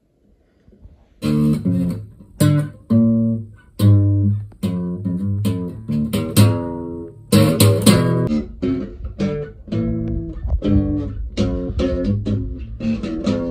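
Acoustic guitar strummed with the bare hand, the pick held in the player's mouth. Separate ringing chords start about a second in, and the strumming gets quicker about halfway through.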